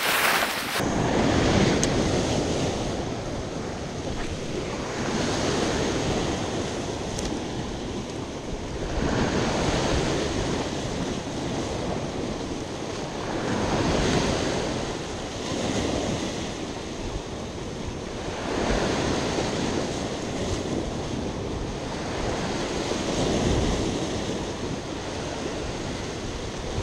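Sea waves breaking and washing against a rocky shore, surging every few seconds in a rough sea, with wind buffeting the microphone.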